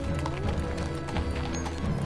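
A horse's hooves clip-clopping on the ground, several strikes a second, over background film music.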